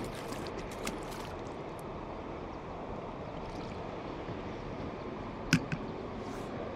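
Steady hiss of wind and lapping water at the water's edge. About five and a half seconds in there is a sharp thump, with a softer one just after.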